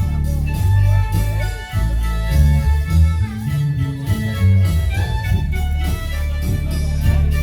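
Marimba band playing: sustained pitched notes over a strong bass line that moves every half second or so.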